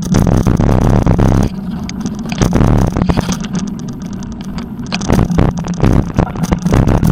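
Wind rumbling over the camera microphone while cycling, with rattling as the bike rides over a bumpy dirt path. The rumble eases for a few seconds partway through, then comes back.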